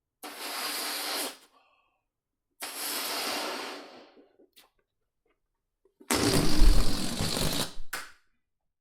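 A balloon being blown up: three rushing puffs of air with short pauses between them. The third, about six seconds in, is much louder, with a low rumble and flutter.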